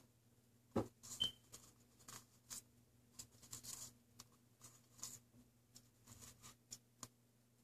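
Faint scattered taps and rustles of a napkin-covered Jiffy cup being handled, turned and set down on a tabletop, over a faint steady hum.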